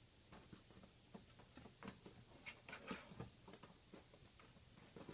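Faint, irregular light scratches and taps, denser in the middle: a cat's claws and paws shifting on a cardboard box.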